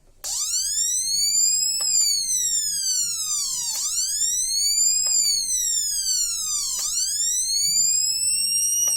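BC547/BC557 transistor siren circuit sounding an electronic wail. It is a harsh tone that starts suddenly just after the start and glides slowly up and down in pitch, each rise and fall taking about three seconds.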